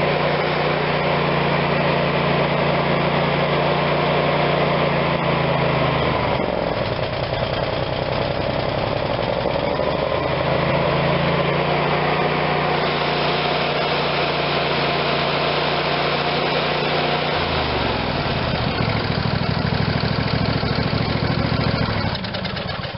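Briggs & Stratton 22 hp Intek OHV twin-cylinder engine running at high throttle after a carburetor rebuild. Twice, for several seconds, its steady note breaks up and runs rough as the choke is pulled out and it gets too much fuel, a sign the cleaned carburetor now feeds enough without choke. The engine stops at the very end.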